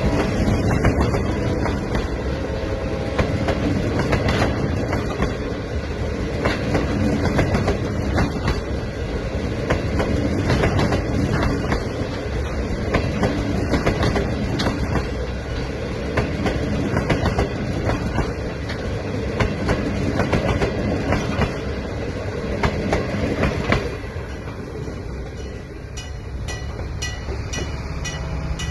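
Passenger train rolling past at close range: a steady rumble of cars with repeated clickety-clack of wheels over rail joints, easing off a little near the end.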